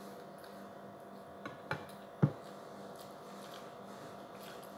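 Eating-by-hand table sounds: three short knocks of fingers and dishes against plates and the tabletop, the last and loudest a little over two seconds in, over a faint steady hum.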